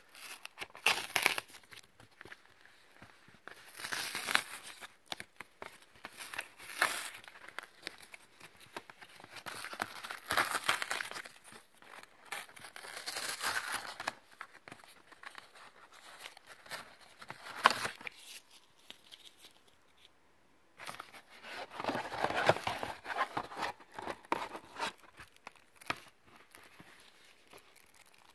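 Cardboard mailer being torn open by hand: repeated rips of cardboard and its tear strip, in bursts of a second or two with short pauses between, and a longer stretch of tearing after a quiet gap a little past the middle.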